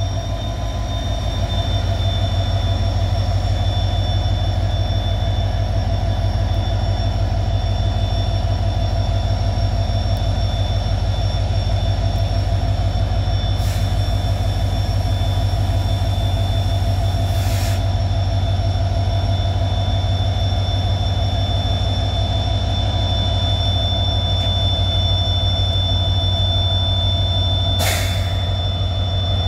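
Diesel engine of a WDP-4D passenger locomotive working as it pulls a train slowly out of the station: a deep, steady engine rumble with a steady high whine over it. Three brief hisses come in the second half, the last near the end.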